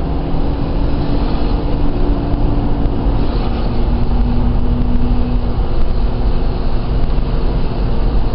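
1995 Toyota 4Runner driving, heard from inside the cab: the engine runs under way over a steady rumble of road and tyre noise. Its hum drops slightly in pitch a little past three seconds in.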